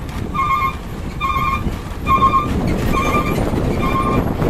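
Hino dump truck's reversing alarm beeping evenly, about once every 0.8 seconds, over the truck's diesel engine running.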